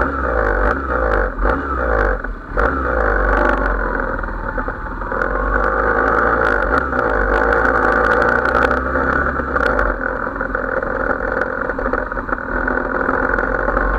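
Motorcycle engine pulling away from a stop and accelerating. It comes in loud at once, and its pitch dips and then climbs again as it runs on.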